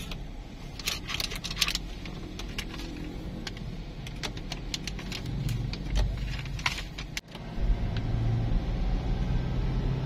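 Car driving, heard from inside the cabin: a steady low engine and road hum with scattered light clicks and rattles. The sound briefly cuts out about seven seconds in, then the hum carries on.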